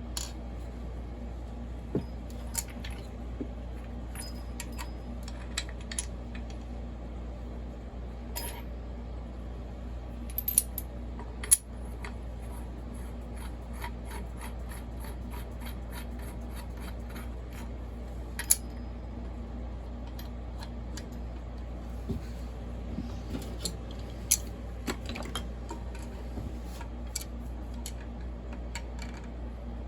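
Scattered light metal clicks and clinks of small hand tools and metal parts being handled during chainsaw crankcase assembly, with a few sharper knocks, over a steady low hum.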